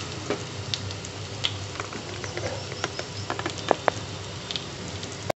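Bread tikki patties shallow-frying in oil in a pan over a low flame: a gentle, steady sizzle with small scattered pops and crackles.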